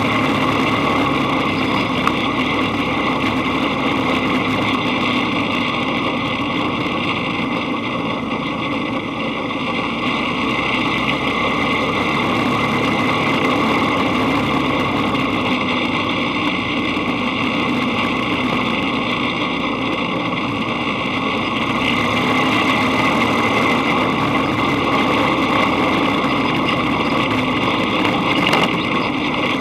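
Dune buggy engine running steadily while the buggy drives along a dirt road. The level dips a little about a third of the way in and rises slightly again about three quarters through.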